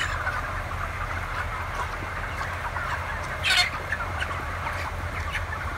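A large flock of 33-day-old broiler chickens clucking and chirping all together, with one louder squawk about three and a half seconds in, over a steady low hum.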